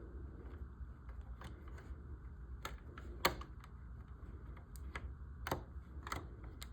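Small screwdriver driving tiny screws into plastic model parts: irregular sharp clicks and ticks of metal on plastic, with one louder click about three seconds in, over a low steady hum.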